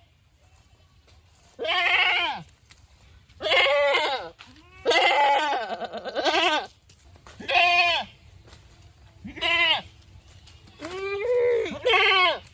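Goats bleating: about six wavering, quavering bleats, one every second or two, with a longer drawn-out one near the middle.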